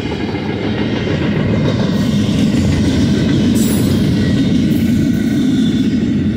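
BNSF double-stack intermodal freight train rolling past: a steady rumble of the well cars' wheels on the rails, with faint steady high tones above it.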